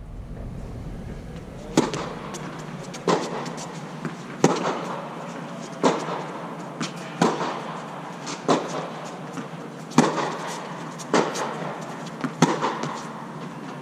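Tennis ball rally: about ten sharp pops, roughly one every second and a half, from the ball striking racket strings and bouncing on the hard court. Each pop echoes briefly under the fabric dome.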